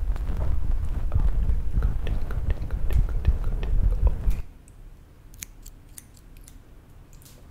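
Close-miked crackling and rustling of hands working right at a foam-covered microphone. It cuts off abruptly about four and a half seconds in, leaving a few sharp, separate snips of small scissors.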